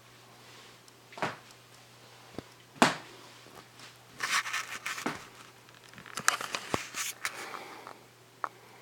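Irregular knocks, clicks and crinkling rustles come and go, the sharpest knock about three seconds in. Beneath them is a faint steady low hum from the Casablanca Zephyr ceiling fan's motor running at its lowest speed.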